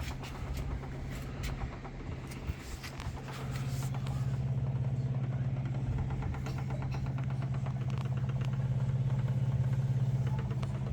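Beko washing machine's drain pump running with a steady electric hum, louder from about three and a half seconds in, with a few clicks and knocks early on. The pump keeps running on its own, a fault the technician puts down to the control board.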